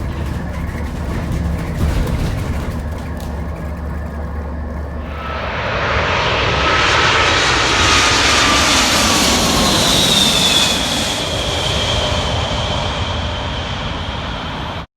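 Inside an Enviro400H hybrid double-decker bus: a low steady rumble, then about five seconds in a loud hiss with high whining tones sets in, slowly falling in pitch and easing off near the end.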